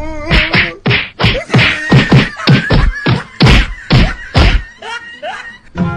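Hands pounding repeatedly on a closed door, about two or three heavy blows a second, fading off near the end.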